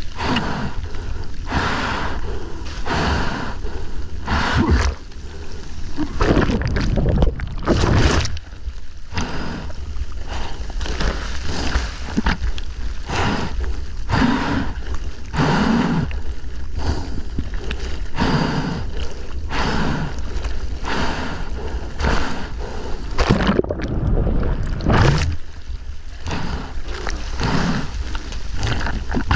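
A surfer breathing hard in rhythmic gasps, about once a second, while paddling through heavy whitewater, with water sloshing and splashing right at the camera and a steady low rumble of wind and surf on the microphone.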